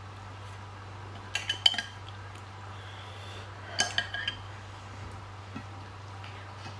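Metal spoon clinking against glass and ceramic dishes: a quick run of light clinks with a brief ringing note about a second and a half in, and another cluster around four seconds in.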